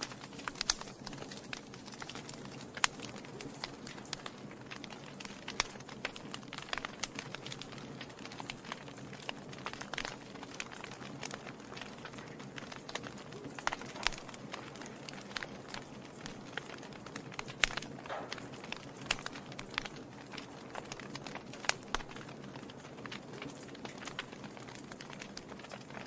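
Wood fire burning in a fireplace, crackling: irregular sharp pops and snaps, a few much louder than the rest, over a steady soft rushing noise.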